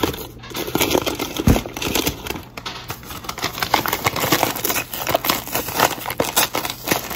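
Sugar being measured out for cookie dough: dense, irregular crinkling and rattling, with one low thump about one and a half seconds in.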